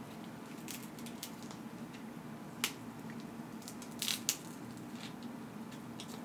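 Crab leg shells being cracked and snapped open by hand: scattered sharp cracks, the loudest a quick pair about four seconds in, over a low steady hum.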